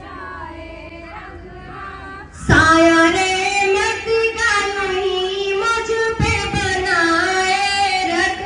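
A group of female voices sings a prayer in unison through a microphone and loudspeaker, in long held notes. It comes in suddenly about two and a half seconds in, over a quieter murmur of voices.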